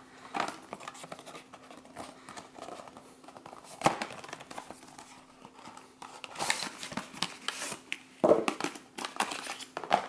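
Paperboard toy boxes handled and opened by hand: scraping, rustling and light taps of cardboard as a box is slid open and its plastic wand pieces pulled out. The sounds come in bursts, the loudest about four seconds in and again near the end.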